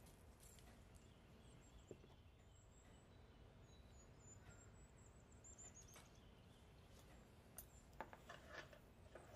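Near silence: faint room tone with a string of faint, high bird chirps in the background, and a few light clicks near the end.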